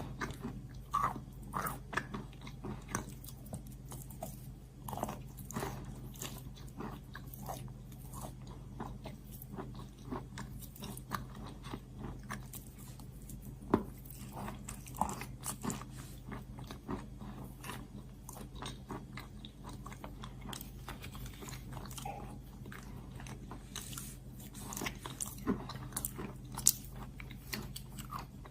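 Close-up biting and crunching of chalk, with irregular crisp cracks and chewing throughout, over a steady low hum.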